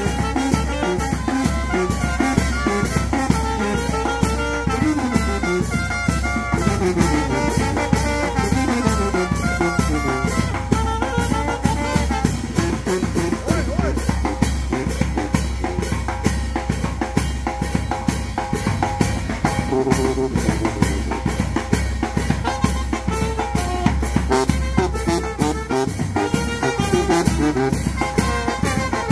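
Small brass band of trombones, trumpets and saxophone playing a lively tune over a bass drum and a snare drum with cymbal, which keep a steady, driving beat.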